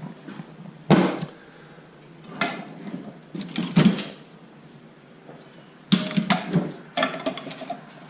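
Workshop handling sounds on an e-bike: a series of separate knocks and clatters of metal parts and tools, the loudest about a second in and just before four seconds in, then a quick run of clicks and rattles from about six to seven and a half seconds in.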